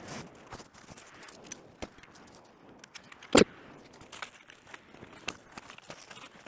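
Handling noise of small gear being worked by hand: scattered light clicks and rustles, with one sharp knock about three and a half seconds in.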